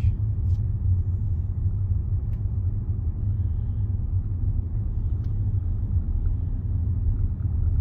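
Steady low rumble of a Range Rover on the move, engine and road noise heard from inside the cabin.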